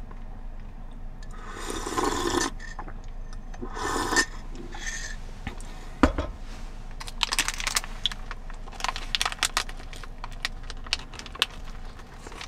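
Handling of small objects: two rustling scrapes, a single knock about six seconds in, then a run of small clicks and taps.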